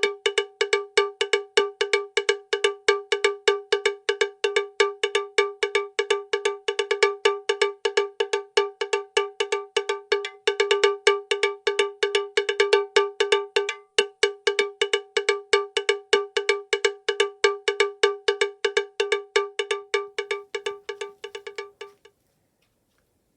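A bell-like percussive note, like a cowbell, struck over and over on one pitch, evenly and rapidly at about five to six strikes a second. It cuts off suddenly near the end.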